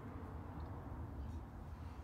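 Workshop room tone: a low steady rumble and hum with no distinct work sounds.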